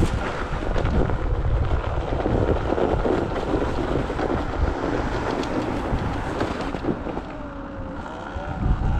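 Wind buffeting the microphone and a steady rumble of movement over packed snow, with a car going by on the road about the middle.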